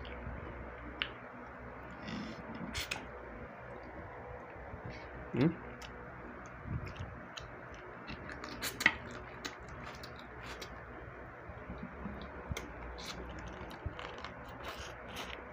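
Close-up eating sounds as crab and fried fish are eaten by hand: scattered small clicks, smacks and wet mouth sounds, the sharpest about nine seconds in, with a brief rising hum about five and a half seconds in.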